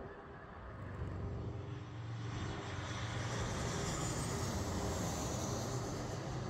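Jet airliner passing low overhead on approach, a Southwest Boeing 737 with its twin turbofan engines: a steady low rumble, with a high engine whine building from about two seconds in and falling slightly in pitch.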